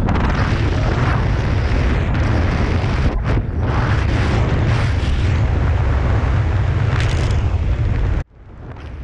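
Wind buffeting the camera microphone during a tandem parachute descent under canopy: a loud, steady rumble. It drops away suddenly near the end as the pair comes in to land.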